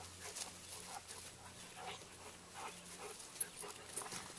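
Faint, scattered rustles and small noises of two dogs, a Welsh Springer Spaniel puppy and a larger yellow dog, running and playing on grass. A single sharper tick comes about three and a half seconds in.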